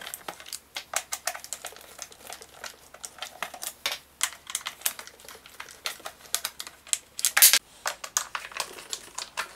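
Hand screwdriver backing screws out of the plastic side cover of a Parkside PISE 800 A1 inverter generator: a run of small, irregular clicks and ticks, with one louder click cluster about seven seconds in.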